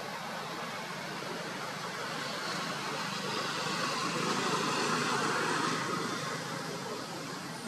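Steady rushing background noise that swells, loudest about five seconds in, then fades back.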